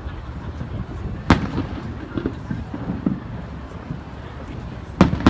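Aerial fireworks shells bursting: two sharp booms, one about a second in and the other near the end, over the steady low rumble of the display.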